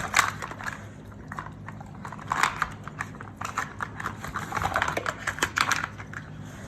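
A dog nosing and pawing at a treat puzzle toy, its pieces and lids knocking together in irregular runs of quick clicks and clatter, busiest in the second half.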